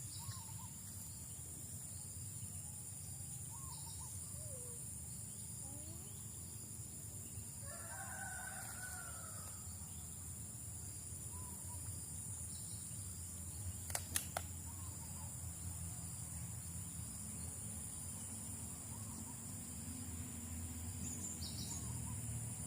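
Rural outdoor ambience: a steady high insect drone over a low rumble. A distant rooster crows once about eight seconds in, with scattered bird chirps, and two sharp clicks come about fourteen seconds in.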